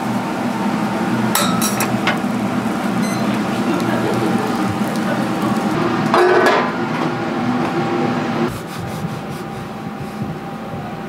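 Steady hum of kitchen machinery with scattered knocks and clinks, and a louder clattering clink about six seconds in. The hum drops off sharply at about eight and a half seconds, leaving light ticking.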